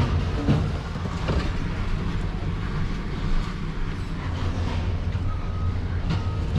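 Truck engine running at a steady idle, a low even hum heard from inside the cab, with a few faint knocks.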